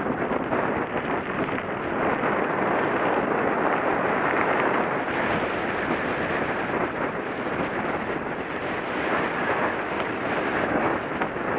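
Mountain bike riding fast over a gravel road: a steady rush of wind on the camera microphone mixed with tyre noise on gravel and many small rattles.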